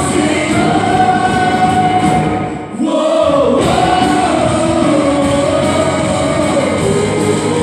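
Christian worship song: a group of voices singing long held notes over a full band. The bass and drums drop out briefly about three seconds in, then the full band comes back.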